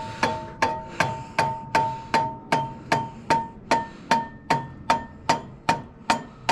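A hammer tapping on metal in a steady rhythm, about two and a half blows a second, each blow leaving a short metallic ring.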